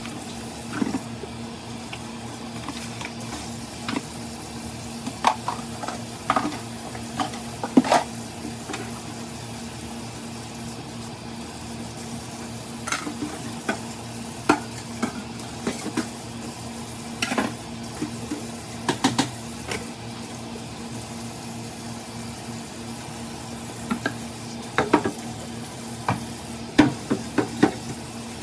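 Cooking utensils clinking and scraping against a pot at irregular intervals over a steady hum, as food is stirred and handled.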